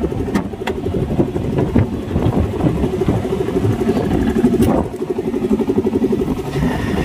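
Yamaha motorcycle engine idling steadily with an even pulse, with a few light clicks near the start.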